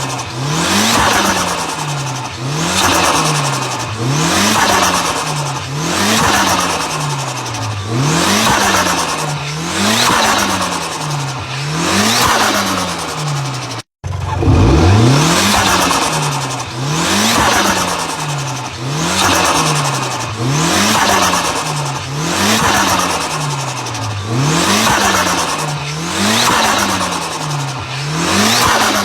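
Turbocharged engine revved over and over, about once every second and a half, its pitch climbing quickly and sinking back each time, with turbo flutter chattering as the throttle snaps shut. A brief cut about halfway splits it into two runs.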